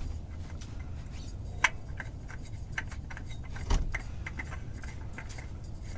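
Scattered small clicks and light knocks as a spin-on oil filter is threaded onto its mount by hand, with a sharper click about one and a half seconds in and a duller knock near four seconds, over a low steady hum.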